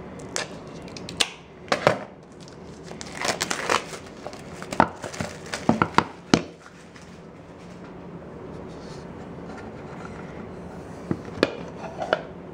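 Hands handling a wooden card presentation box and a cloth drawstring pouch on a tabletop: a run of sharp clicks and knocks with crinkling rustles over the first half, then quieter, with a few more clicks near the end.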